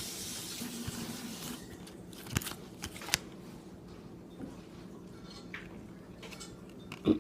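An even background hiss stops about a second and a half in. Then come scattered light clicks and snaps from trading cards being handled and sorted.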